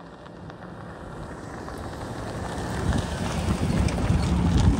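Pickup truck driving up to and past the camera, its engine and tyre noise growing steadily louder as it closes in, loudest near the end.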